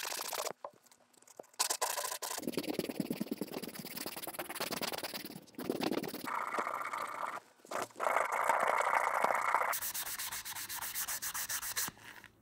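Sanding sponge scrubbing an amber stone in fast back-and-forth strokes right at the microphone, with short breaks about a second in and again past the middle; the strokes stop just before the end.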